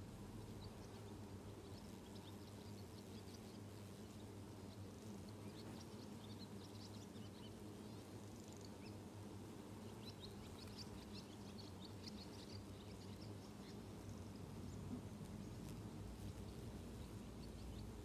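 Honeybees at the hive entrance humming steadily and faintly, with birds chirping over them, most busily in the middle.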